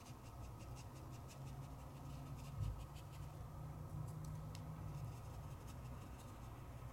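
Faint scratching and light tapping of a wet paintbrush working ink and water on paper, over a steady low hum, with one soft thump about two and a half seconds in.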